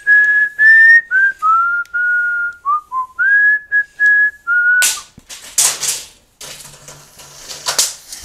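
A man whistling a tune in clear, steady notes until about five seconds in. Then a run of rattling clatters as the extended steel tape measure blade is brought down and reeled back in.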